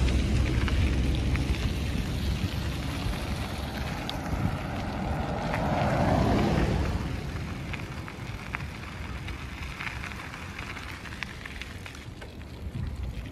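Wind on the microphone and road noise from a moving bicycle, with scattered small clicks and rattles. The rumble swells briefly about six seconds in, then slowly grows quieter.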